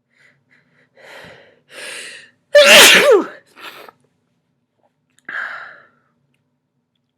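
A person with a head cold sneezing once: two gasping in-breaths build up, then one loud sneeze with a voiced cry about two and a half seconds in, followed by a softer breath sound a few seconds later.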